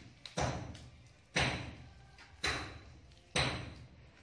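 A steel trowel knocking against the mortar board while working tile mortar: four sharp knocks about a second apart, each ringing briefly.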